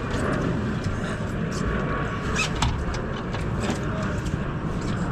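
Steady low rumble of wind buffeting the microphone on a fishing boat, with scattered small clicks and knocks.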